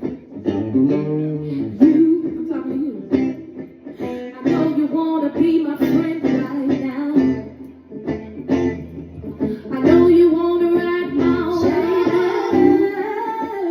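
A song performed live: a singer over guitar accompaniment.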